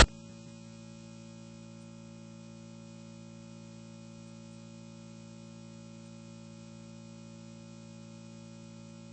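Faint steady hum made of a few constant tones over a low background hiss, unchanging throughout, just after a loud sound cuts off abruptly.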